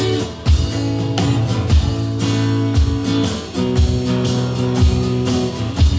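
Live instrumental passage of a song: strummed guitar chords ringing over a steady low beat that lands about once a second.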